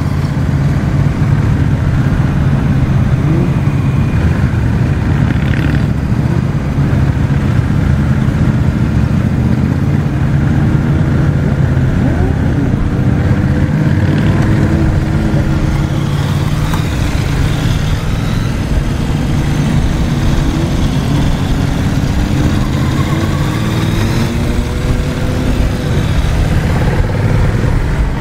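A pack of motorcycles riding slowly together, heard from the saddle of a Honda Rebel 1100 with its parallel-twin engine: a steady low engine rumble, with engines revving up and rising in pitch through the second half as the group gathers speed.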